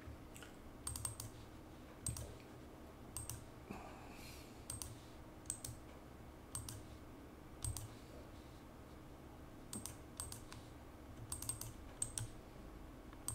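Computer mouse buttons and keyboard keys clicking: short, sharp single and double clicks, roughly one every second.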